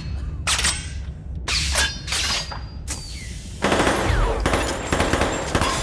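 Film battle sound effects of gunfire. A few separate loud bursts come in the first three seconds, then rapid continuous automatic fire from a little past halfway, over a low rumble.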